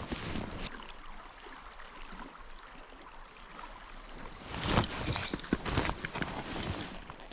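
Creek water running steadily, with a flurry of clicks and knocks about halfway through.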